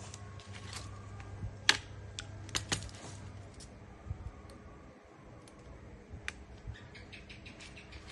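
Irregular sharp clicks and taps of small metal parts and hand tools being handled on a workbench, a few louder ones about two seconds in. A low steady hum runs under them and stops about three and a half seconds in.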